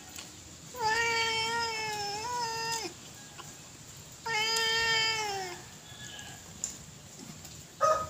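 Two long, drawn-out animal calls, each about two seconds, steady in pitch and dropping at the end, the second starting about four seconds in.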